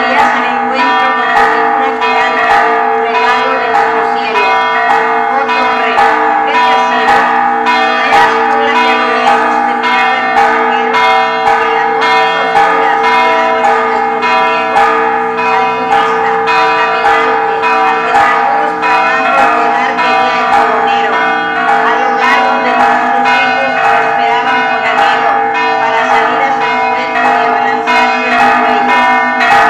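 Church bells pealing from the tower, several bells struck over and over in quick, continuous succession, their tones ringing on and overlapping.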